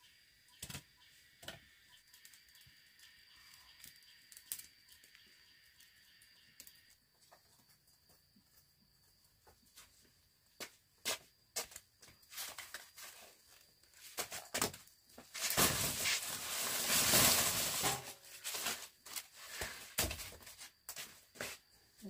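Ears of corn still in their husks tipped out of a woven basket onto a dirt floor: a rustle of husks lasting about two seconds, the loudest sound here, among scattered knocks and handling rustles.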